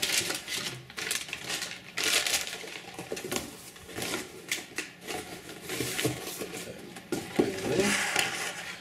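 Cardboard box and packaging being handled: rustling and scraping of cardboard and tissue paper with irregular knocks and taps as the box is closed and a plastic tray is lifted out.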